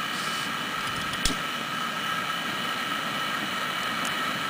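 Small electric blower on a homemade wood gasifier running steadily with a high whine, drawing producer gas through to the flare tube. A single click about a second in.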